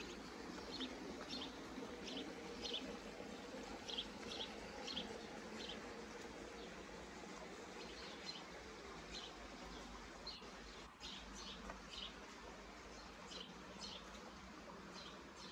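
Small birds chirping: short, high chirps repeated in loose clusters, over a faint steady background hum.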